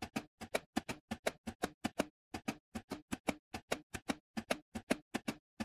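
Enigma I cipher machine keyboard in the Virtual Enigma simulation being typed: a steady run of key clacks, about five a second, as the plaintext is encrypted letter by letter.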